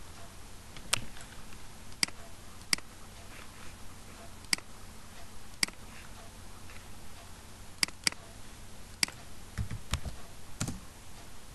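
Computer mouse and keyboard clicks, sharp and irregular: about ten in all, a couple of them in quick pairs. Near the end come a couple of dull thumps, over a faint steady hum.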